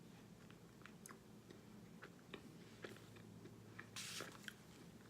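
Faint crunching and chewing of microwave-baked cornstarch chunks, with scattered sharp crackles and a louder crunch about four seconds in.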